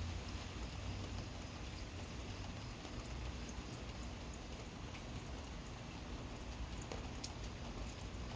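Steady gentle rain falling, with scattered drips pattering on hard surfaces.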